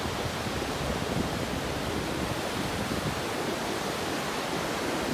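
Sea surf breaking and washing up on a sandy beach: a steady rushing noise.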